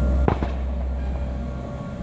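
A single sharp bang about a quarter second in, followed by a smaller knock, over a steady low rumble.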